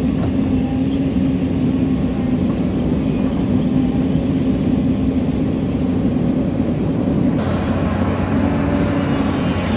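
Hyundai Robex crawler excavator's diesel engine running steadily under load as the boom and bucket dig into a hillside. The sound turns brighter about seven seconds in.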